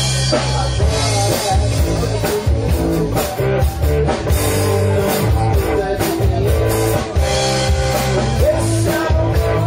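Rock power trio playing live: electric guitar, electric bass and drum kit, with steady drum strikes over a driving bass line.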